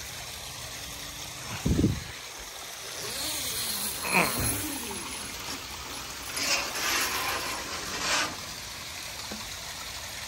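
Backyard koi pond waterfall splashing steadily, with a short thump about two seconds in and a few brief handling noises in the middle and around seven to eight seconds.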